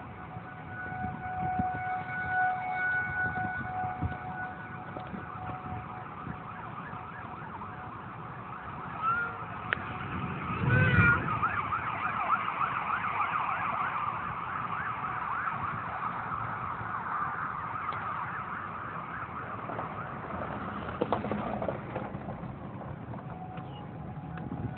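A siren wailing over steady low rumble: a held steady tone for the first few seconds, then a fast wavering warble from about ten seconds in, with a brief loud bump about eleven seconds in.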